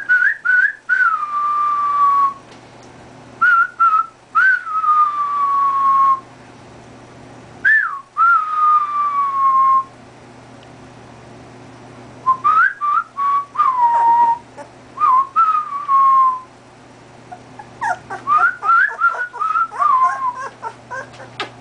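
A person whistling, and a 2½-week-old golden retriever puppy howling back in thin, high, slowly falling tones. The sounds come in about five bouts of a couple of seconds each, with short pauses between.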